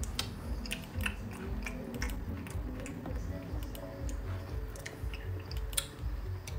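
A person chewing close to the microphone, with irregular small mouth clicks and smacks.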